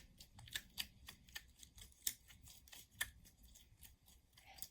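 Slime being squished and worked by hand, giving faint, irregular clicks and pops, a few each second.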